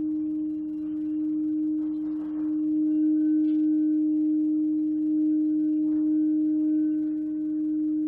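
A singing bowl sounding one steady, sustained tone with faint higher overtones, gently swelling and easing in loudness.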